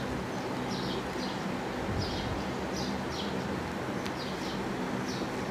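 A puri deep-frying in hot oil in a karahi: a steady sizzle over a low hum. Short high bird chirps, often in pairs, sound every second or so in the background.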